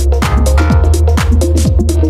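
Background electronic dance music with a steady driving beat and heavy bass.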